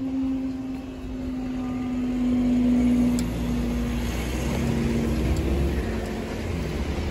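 Level crossing barrier raising, its hydraulic power pack running with a steady hum that starts just before and sags a little about three seconds in, over a low rumble.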